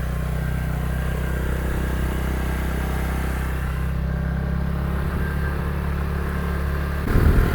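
A vehicle's engine running at a steady speed on the road, an even low hum, turning louder and rougher near the end.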